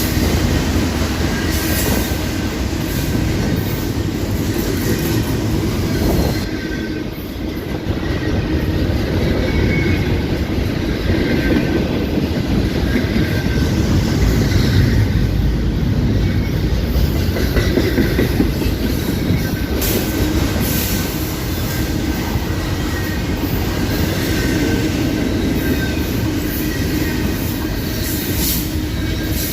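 A train's cars rolling past on the track: a steady, loud rumble with wheels clacking over the rail joints and a faint wheel squeal that comes and goes.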